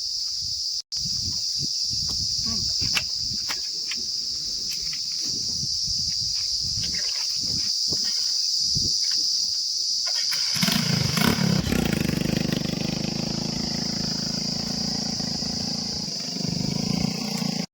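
Heavy diesel machinery at work: a low uneven rumble with scattered knocks, then, about ten seconds in, a diesel engine comes up loud and close and runs steadily. A steady high-pitched insect buzz goes on underneath.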